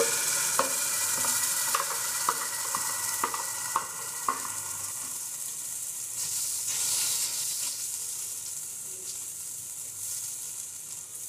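Ground cashew, almond and onion masala paste sizzling in hot butter and oil in a nonstick pot, stirred with a spatula. For the first four seconds or so sharp clicks about twice a second, the spatula knocking as the paste is scraped in, then a steadier, slowly fading sizzle.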